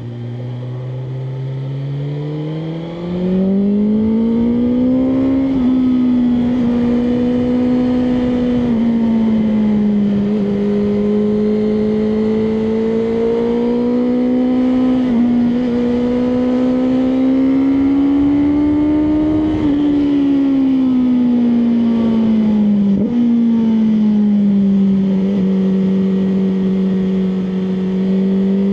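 BMW M1000R Competition's inline-four engine pulling under way. Its pitch climbs over the first few seconds, then holds with slow rises and brief dips now and then, and drops back to a lower steady run after the middle.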